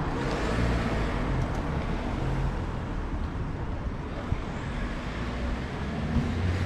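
Road traffic: a van's engine running close by, then pulling away and driving off, over a steady low traffic rumble.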